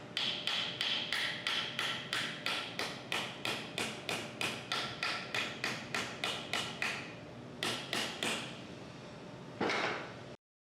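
Hammer blows seating a new expansion plug over a bearing in a pump housing: about three ringing metallic taps a second for roughly seven seconds. After a short pause come three more taps, then one duller knock near the end.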